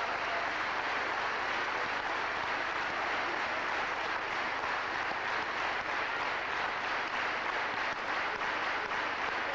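A large concert audience applauding steadily, the dense, even sound of many hands clapping at once.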